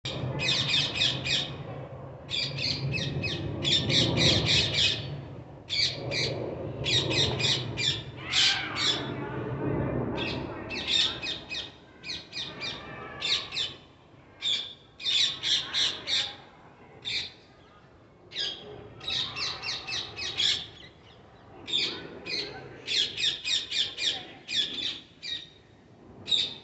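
Parrots squawking: clusters of short, harsh calls repeated several times a second, broken by brief pauses.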